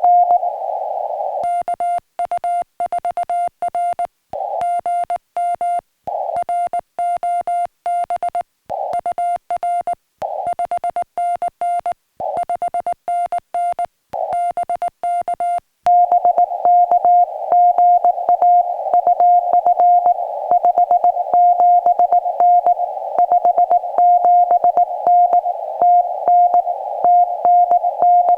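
Morse code (CW) on a portable ham radio transceiver: a single mid-pitched tone keyed on and off in rapid dots and dashes, with a hiss of band noise around it. The keying comes in short runs separated by brief pauses, and from about halfway through it runs on more densely.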